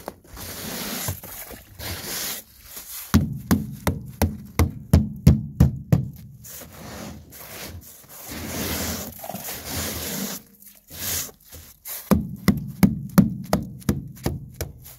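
A hand tool chipping and scraping frozen spray and packed snow off an aluminum boat's gunwale. There are runs of quick knocks, about three a second, from about three to six seconds in and again near the end, with scraping in between.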